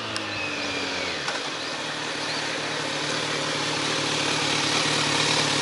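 Kawasaki Z900RS inline-four engine breathing through a K-Factory aftermarket silencer: its pitch falls in the first second, then it runs steadily at an even pitch.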